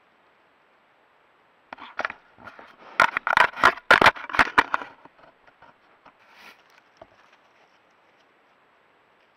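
Black bear handling a trail camera, knocking and scraping it. A quick run of loud knocks and scratches starts about two seconds in and is loudest around three to five seconds. It then fades to occasional small scratches as the camera is left knocked askew.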